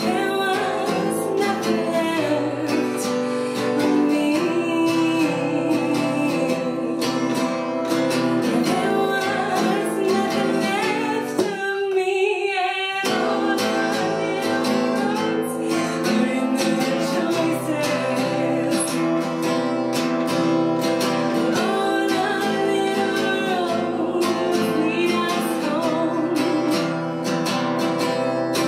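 A woman singing while strumming an acoustic guitar. About twelve seconds in, the strumming stops for about a second and a half while her voice carries on.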